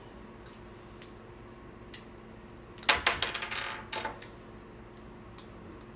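Light clicks and taps of a screwdriver and a small plastic plug being handled, scattered at first, then a quick run of clicks and rattles about three to four seconds in.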